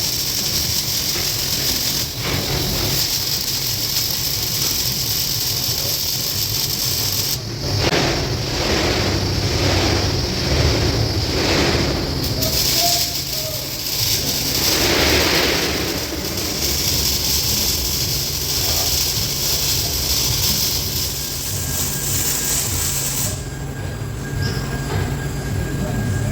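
TIG welding arc hissing steadily over the welding machine's low hum as a pass is run with the cup walked along the pipe joint. A run of rhythmic pulses, about two a second, comes through in the middle.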